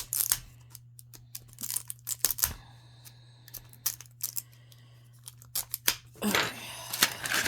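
Plastic Miniverse mini capsule ball being handled and opened by hand: a run of sharp clicks, snaps and scratchy rustling, with a brief squeak about three seconds in and a denser, louder rustle near the end.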